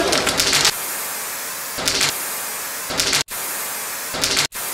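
Aerosol spray-paint can hissing, with a steady spray broken by three louder bursts about a second apart. The sound drops out abruptly twice, as at edit cuts.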